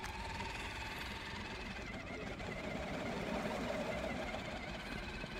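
RC crawler truck's electric motor and gearbox whining steadily as it climbs a steep asphalt bank, getting a little louder about midway through.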